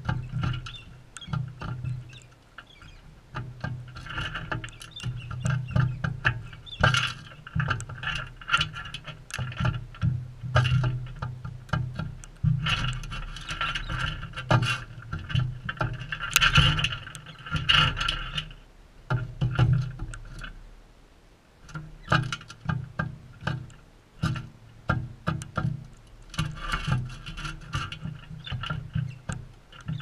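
Galahs feeding at a seed tray right at the microphone: a rapid, irregular run of beak clicks and taps as they peck and crack seed, over a steady low hum.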